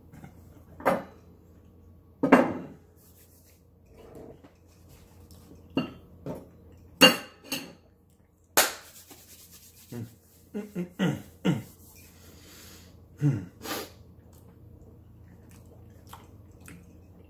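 A knife and a ceramic plate being handled, giving short clinks, knocks and scrapes at irregular intervals, with a quick run of them a little past the middle.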